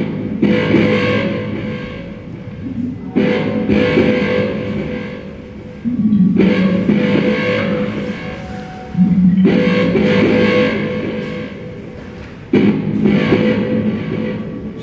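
Electric guitar through an amplifier, a chord struck about every three seconds and left to ring and fade, five times in all, in a large bare concrete hall.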